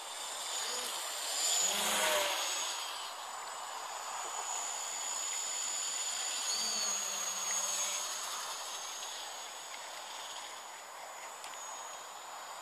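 Gaui 330X-S quadcopter flying, its electric motors and propellers giving a thin high-pitched whine that wavers in pitch as the throttle changes, over a steady hiss; a brief louder rush of noise comes about two seconds in.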